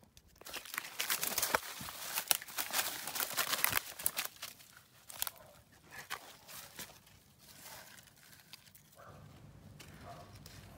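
Dry fallen leaves and undergrowth rustling and crackling as a hand and a dog scrabble through them after a lizard, loudest and densest in the first four seconds, then lighter, scattered rustling.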